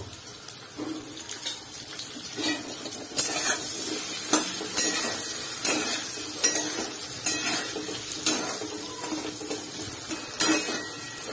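Potato pieces frying in oil in a metal kadai, sizzling, while a metal spatula stirs them, scraping and knocking against the pan about once a second.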